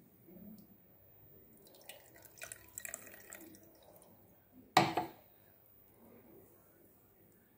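Blended carrot juice pouring and dripping through a steel mesh strainer into a bowl, faint, with one sharp knock about five seconds in.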